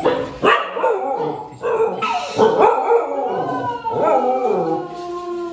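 Young husky-mix dogs howling: a few short, wavering yips and howls, then one long drawn-out howl in the second half.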